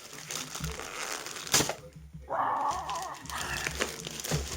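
Packaging crinkling and tearing as a parcel is opened by hand, with one sharp crack about a second and a half in and a brief wavering squeak around the middle.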